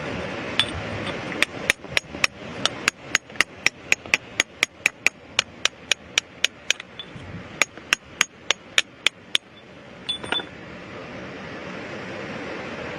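Hammer striking rock in a quick run of sharp, ringing blows, about three to four a second, with a brief pause midway. One heavier knock follows soon after the blows stop, over a steady background hiss.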